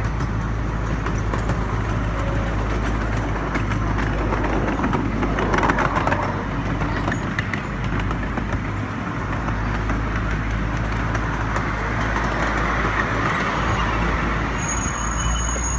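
Ride-on miniature railway train running along its track: a steady rumble and rattle of the carriages, with scattered faint clicks from the wheels on the rails.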